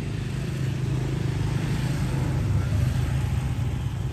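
Motor vehicle engine running as it passes, a steady low rumble that swells about two to three seconds in and then eases.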